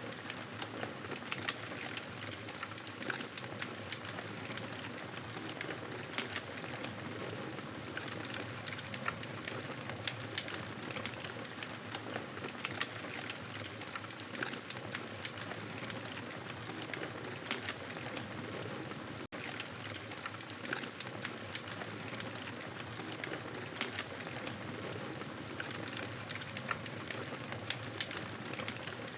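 Campfire crackling steadily, with many small sharp pops and snaps over a soft hiss. The sound cuts out for an instant about two-thirds of the way through.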